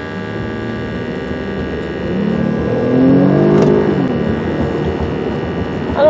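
2011 Ford Edge's 3.5 Duratec V6 heard from inside the cabin, running over a steady hum. About two seconds in, the engine note swells and climbs in pitch, then falls away again, with a single light click in the middle.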